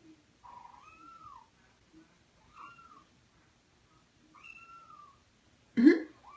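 Kittens meowing: three drawn-out mews that rise and fall in pitch, about two seconds apart.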